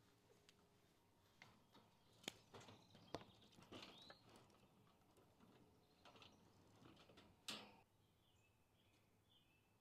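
Faint clicks and rattles of a wire pet cage being set down on a plastic folding table and handled, with a sharp click about seven and a half seconds in. A few faint high chirps near the end.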